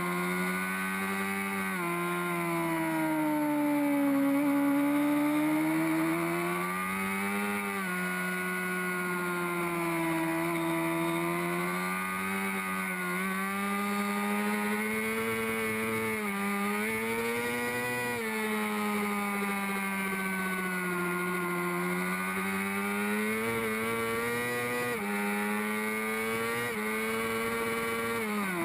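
Honda CBR600RR's inline-four engine at racing speed, with wind rushing past. The engine pitch sinks and climbs again through the corners and drops sharply several times as the bike shifts up.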